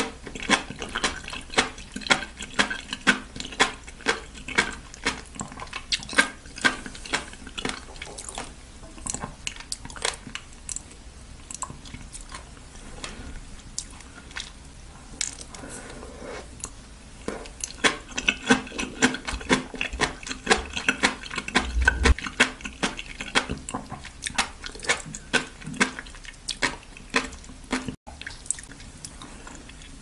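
Close-miked chewing of raw oysters and sea grapes: fast runs of small wet clicks and pops as the sea grape beads burst in the mouth, with slurpy mouth sounds. The clicking is densest in the first third and again from about two-thirds of the way through, with a sparser stretch between.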